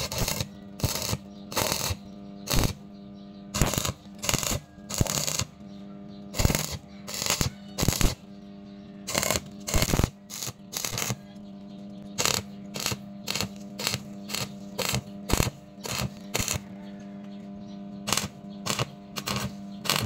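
Electric arc welding on steel tube, the arc crackling in short bursts about every half second to a second as it is struck and broken again, over a steady electrical hum.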